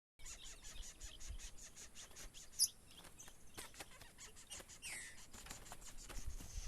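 A songbird calling: a fast run of short high ticks, about five a second, then a sharp high note about two and a half seconds in and a falling whistled note near the end.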